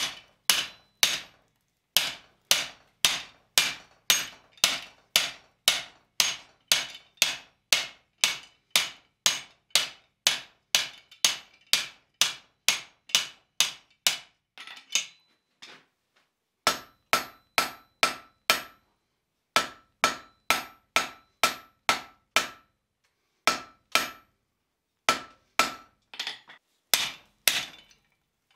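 Hand hammer striking the top die of a guillotine tool on an anvil, about two blows a second, forging down a hot steel bar to make a rivet. There is a brief pause about halfway, and many of the later blows carry a ringing tone.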